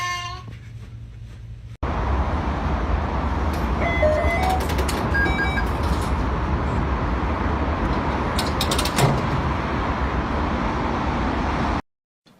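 Steady outdoor rumble of passing road traffic, starting abruptly about two seconds in and cutting off just before the end, with a few faint clicks near the middle.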